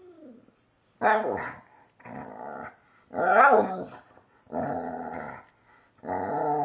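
A puppy growling and barking in about five short bouts, each under a second, with a louder rising-and-falling bark about halfway through.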